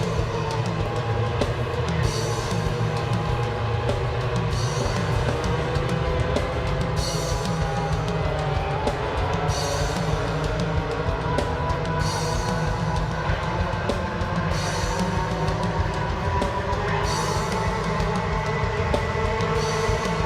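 Band music with a drum kit: cymbal crashes about every two and a half seconds over sustained held chords and a steady low drum and bass beat.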